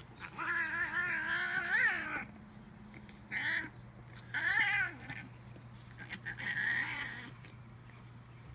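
Domestic cat meowing: one long, wavering meow of about two seconds, followed by three shorter meows.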